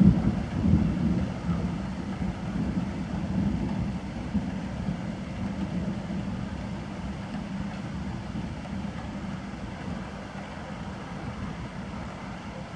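Low rumble of rolling thunder, loudest in the first second or two and then slowly dying away.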